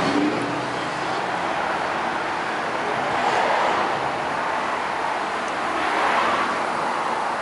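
Road traffic: a steady hum of passing cars, swelling twice, about halfway through and again near the end.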